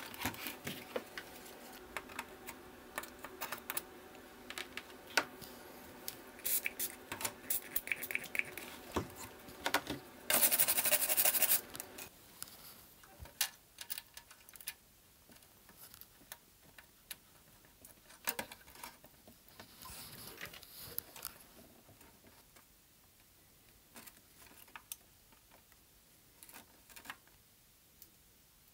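Small clicks and taps of hand work on a circuit board while a logic chip is swapped out. A steady hum runs under the first twelve seconds, and a loud noisy burst comes about ten seconds in. After that only scattered clicks remain.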